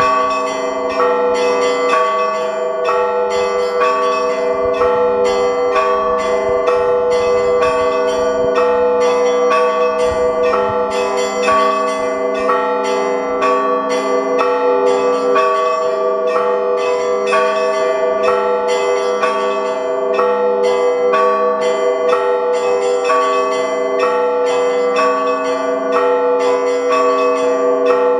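Russian Orthodox monastery bells rung in a full peal. Several clapper-struck bells of different pitches sound in a rapid, steady run of strikes, their tones ringing on over one another without a break.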